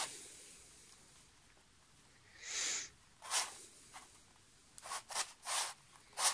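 Plastic pieces of a 3D-printed Spartacus dodecahedron twisty puzzle scraping and clicking as its faces are turned by hand: several short rasps, the longest about two and a half seconds in.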